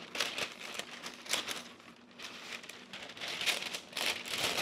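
Parchment paper being pulled from its box and handled, crinkling and rustling in short irregular bursts, with one sharp knock at the very end.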